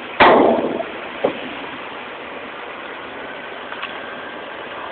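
Scania P360 truck running as it pulls a long trailer past, a steady noise with no clear engine note. A loud sudden burst of noise comes about a quarter second in and dies away within about half a second, followed by a short sharp sound about a second in.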